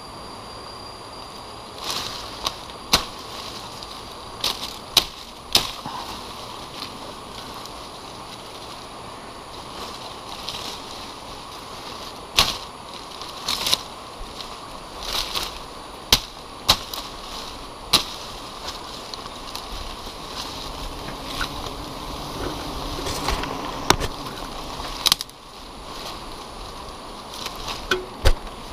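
Irregular sharp cracks and snaps of twigs and branches, with leaves rustling, as a climber works through the foliage of a tree, over a steady hiss.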